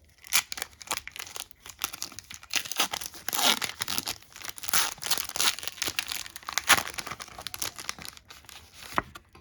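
A Pokémon card booster pack's foil wrapper being torn open and crinkled by hand, a busy run of irregular crackling and ripping.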